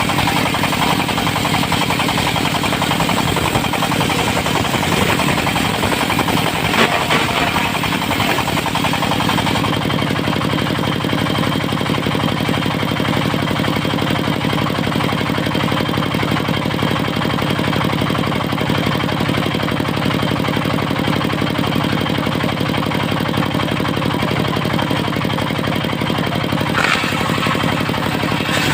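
Diesel engine driving a portable circular sawmill, running steadily. A higher hiss over the engine fades about ten seconds in, and there are a couple of brief sharp clicks.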